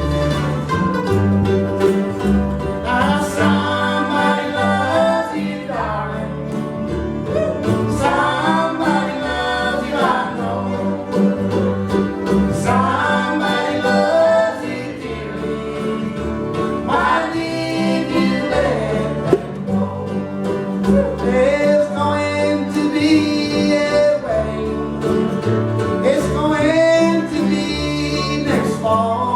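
Acoustic string band playing a country song with fiddle and guitar, with a vocal duet sung in repeated phrases over the steady rhythm.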